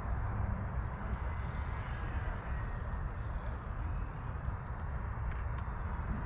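Small electric RC plane (a GWS Zero foam park flyer) in flight: a thin, high motor-and-propeller whine that wavers slightly in pitch, over a low rumble of wind on the microphone.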